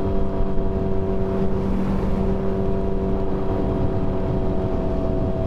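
Suzuki Hayabusa's inline-four engine running at a steady cruise while riding, under a low rush of wind noise.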